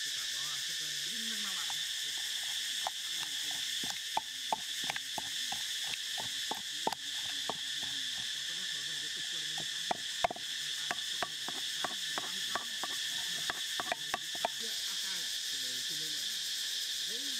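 Wooden pestle pounding chili sauce in a wooden mortar: a run of knocks, a few a second, from about three seconds in until near the end. Insects keep up a steady high drone throughout.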